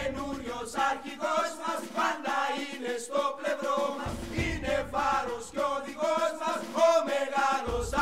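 Theme music with a group of voices chanting in a steady rhythm.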